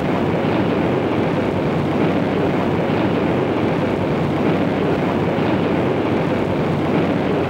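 Steady, even roar of aircraft engine noise with no change in pitch or level.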